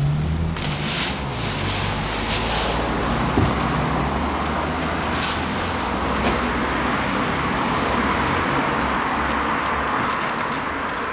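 A motor vehicle engine running, its low hum shifting in pitch in the first second or so, over a steady noisy hiss with a few light clicks.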